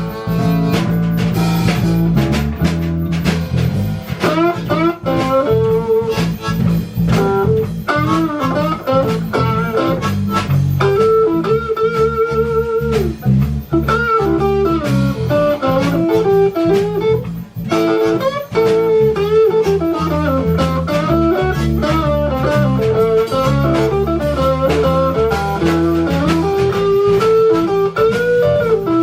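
Blues band playing an instrumental passage: guitar over a steady bass and rhythm, with bending melodic lines from guitar and harmonica.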